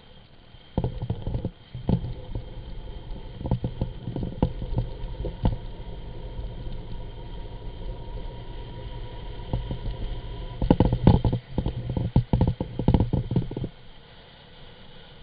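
Wind buffeting and vibration on a GoPro riding a gravity bike downhill at speed: a muffled low rumble broken by knocks and thumps. It starts about a second in, is heaviest in the last third, and drops away about a second and a half before the end.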